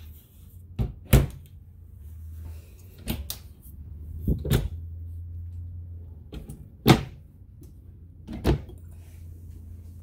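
Kitchen cabinet doors being opened and shut, a run of about seven sharp knocks and clacks, the loudest about seven seconds in, over a low steady hum.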